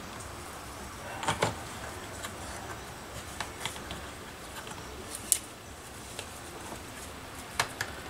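Scattered light clicks and taps of small plastic and metal parts as the throttle trigger, spring and linkage are worked into a Stihl 026 chainsaw's rear handle by hand, the sharpest click about five seconds in.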